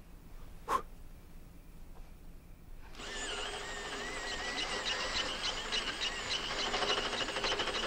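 Electric pencil sharpener whirring as it grinds a pencil already worn down to a stub, starting about three seconds in, with a wavering high whine over the motor. A short click comes just under a second in.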